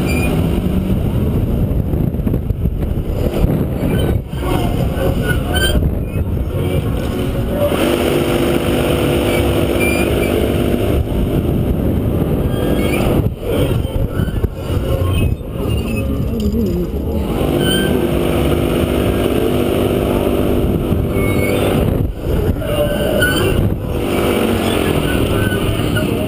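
Capriolo Eclipse gondola swinging and turning at speed, with rushing air and ride noise heavy on the helmet camera and short squeaks from the gondola, which has not been greased. A steady hum of several pitches comes in twice for a few seconds.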